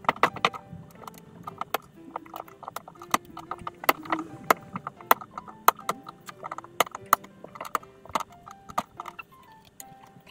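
Irregular sharp clicks and knocks of hard plastic parts being handled and pushed into a tight fit, over soft background music with short held notes.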